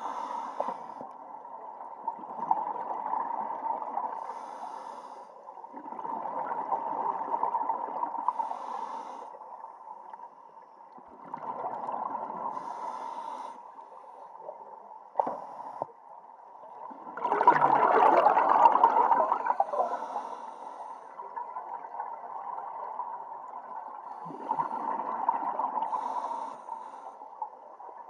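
Scuba diver breathing through a regulator underwater: exhaled bubbles come in bursts lasting two to three seconds, about every five or six seconds, with the loudest one about two-thirds of the way through. A steady faint tone runs underneath.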